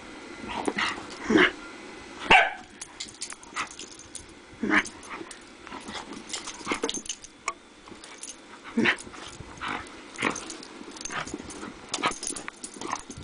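A Scottish terrier and a Rottweiler play-fighting, with short barks and growly vocalisations coming in separate bursts at irregular intervals, the loudest in the first few seconds.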